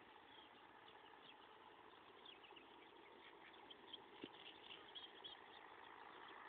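Near silence: faint outdoor background hiss with many faint, short high chirps, and a couple of faint ticks.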